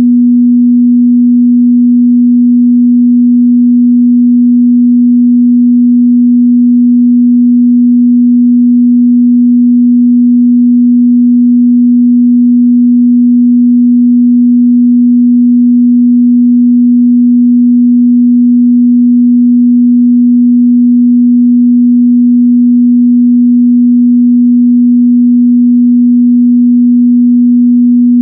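A steady 243 Hz sine-wave test tone, one pure unchanging low hum held at a constant loud level, used for checking speaker and headphone response.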